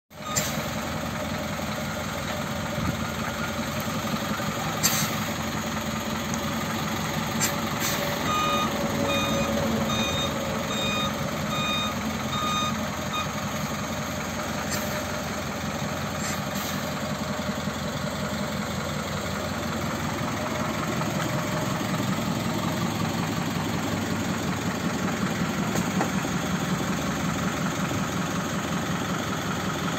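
Isuzu Turkuaz midibus's diesel engine idling steadily. About eight seconds in, a run of about seven evenly spaced electronic beeps sounds over it for a few seconds.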